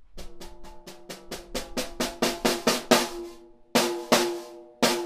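PDP 6x10 popcorn snare with a single-ply factory head played with sticks. A run of strokes speeds up and grows louder over about three seconds, then come a few separate loud hits. Each stroke leaves a high ringing tone with snare-wire buzz.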